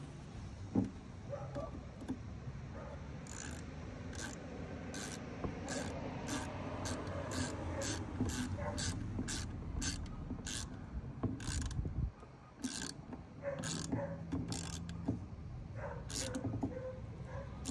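Hand ratchet wrench tightening small screws, clicking repeatedly in short bursts as it is swung back and forth.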